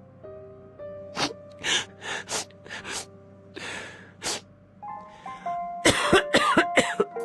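Coughs from a Plotagon text-to-speech voice, a string of short coughs over background music, growing denser and louder near the end.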